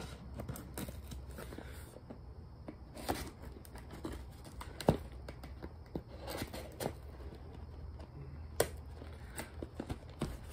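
Small scissors cutting through packing tape on a cardboard box: irregular sharp snips and clicks, with the scrape of tape and cardboard between them.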